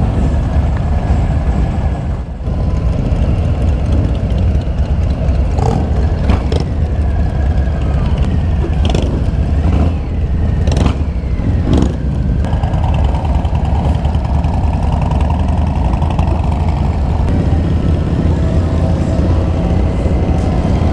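Harley-Davidson Softail Standard's Milwaukee-Eight V-twin running steadily at low speed as the bike rides off in a column of motorcycles. Other bikes' engines around it add sharp noises and rising and falling engine sounds between about five and twelve seconds in.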